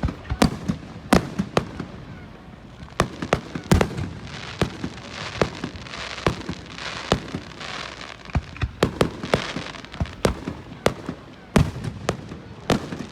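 Fireworks exploding: an irregular, rapid series of sharp booms and bangs, several a second at times, with a hissing, crackling haze between them.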